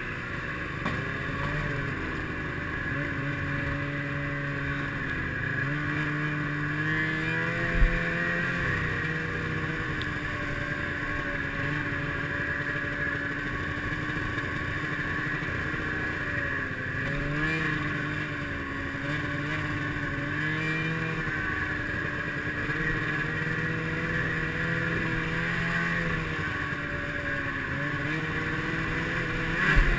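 Snowmobile engine running while riding a trail, its pitch rising and falling with the throttle, with a single sharp thump about eight seconds in.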